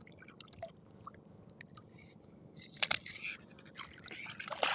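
Water splashing and dripping close to the microphone, with scattered small clicks. Louder sloshing and splashing starts a little past halfway.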